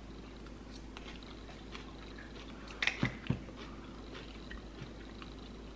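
Faint chewing of a mouthful of spicy kimchi (fermented napa cabbage), with soft scattered clicks and two louder knocks about three seconds in.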